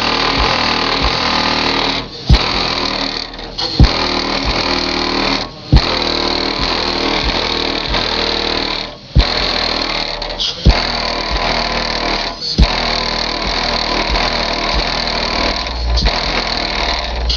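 A hip-hop track playing through a van's newly installed HCCA subwoofers driven by Orion amplifiers, with heavy bass hits about every one and a half to two seconds over a dense, buzzy din. The subs are being broken in.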